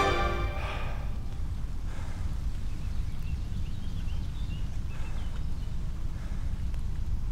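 Steady low outdoor rumble, as of wind on the microphone, with a man's heavy breath out about half a second in and a few faint high chirps in the middle.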